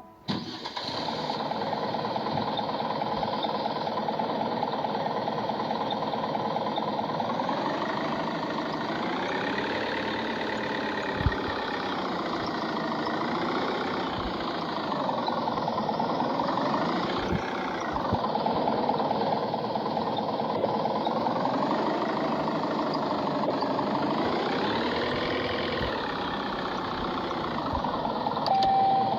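Off-road Jeep's engine running, its pitch rising and falling several times as it is revved.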